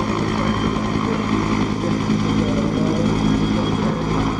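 Canadian Forces UH-1 Huey helicopter in flight, its rotor and turbine engine running with a steady drone.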